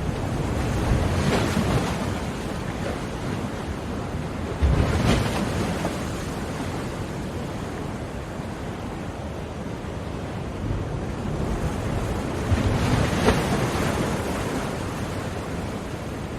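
Ocean surf: a steady wash of waves breaking on the shore, swelling three times as bigger waves crash, a second or so in, around five seconds in, and again near the end.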